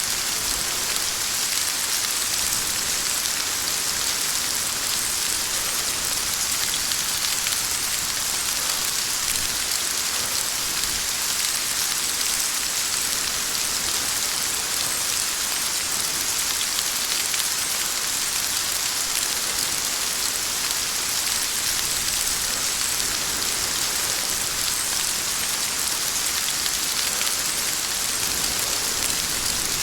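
Steady heavy rain falling on a hard surface, an even hiss without thunder.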